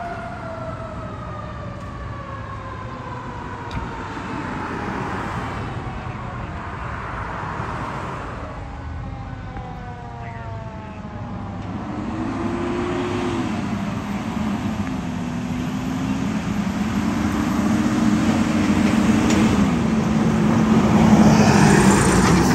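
Fire engine approaching and passing close by, its siren sweeping up and down in pitch over its running engine. Both grow louder until the truck goes by near the end.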